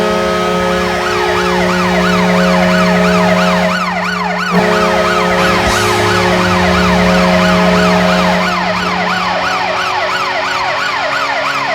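Minnesota Wild arena goal horn: a deep, steady horn blast sounding together with a siren wailing rapidly up and down, about three sweeps a second. The horn cuts out for a moment about four and a half seconds in, then fades near the end while the siren keeps going.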